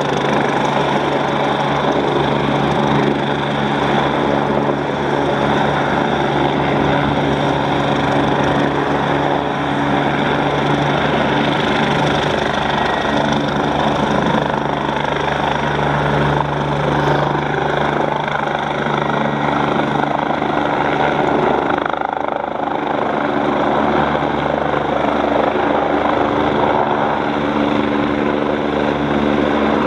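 Eurocopter BK 117 helicopter's twin turbines and rotors running loud and steady, with a constant turbine whine over the rotor noise, as it lifts off from the pad into a hover.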